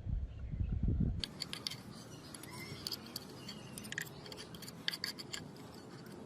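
Irregular sharp metallic clicks with light scraping, from small metal parts being handled, beginning about a second in after a short low rumble.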